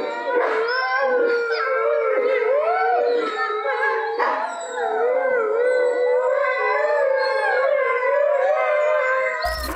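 Several Eurasian wolves howling together in a chorus, their wavering calls overlapping at different pitches. A brief click comes near the end.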